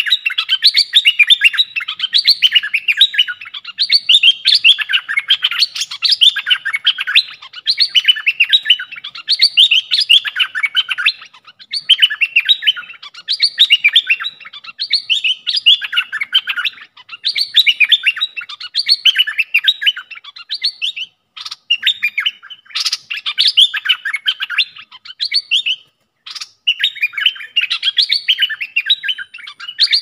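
Caged decoy bulbul calling: rapid, chattering chirps in long runs with short breaks.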